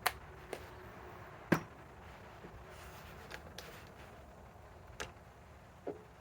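Scattered sharp clicks and clunks of tools and hardware being handled, about seven in all, the loudest about a second and a half in; no impact wrench is running.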